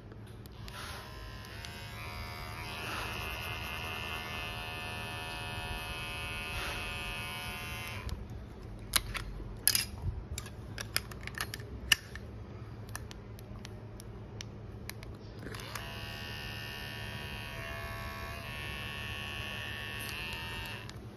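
B60 electric hair clipper running with a steady buzz, stopping about eight seconds in. A few seconds of clicks and handling sounds follow, then the clipper runs again for the last five seconds.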